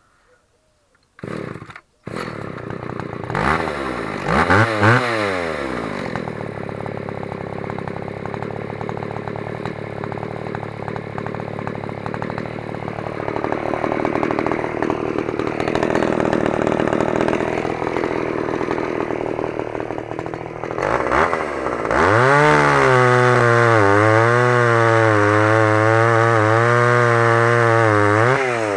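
Stihl 015 one-handed two-stroke chainsaw pull-started from the ground, catching after a brief first burst about a second in and blipped twice before settling to a steady idle. About twenty seconds in it revs up to full throttle and holds there, the pitch wavering as the chain cuts through a log.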